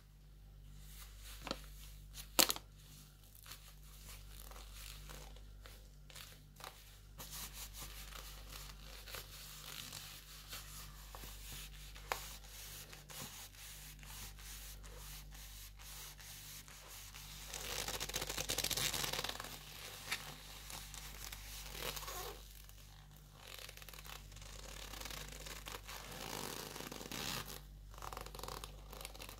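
Leather gloves rubbing against each other as the gloved hands are wrung and flexed: a soft rubbing, scraping noise of leather on leather that comes and goes. A sharp click about two seconds in, and a louder stretch of rubbing about two-thirds of the way through.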